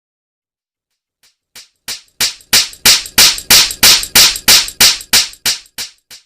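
Slap sound effect repeated in a quick run of sharp smacks, about three a second, starting after a second of silence. The smacks grow louder to a peak in the middle, then fade away near the end.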